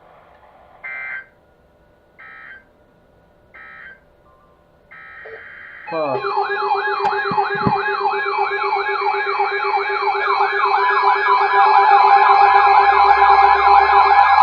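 A few short bursts of EAS digital data tones, each well under a second, with a longer one just before the sixth second. Then loud electronic siren tones wail in, several fast-wavering sweeps layered over steady tones, growing louder toward the end.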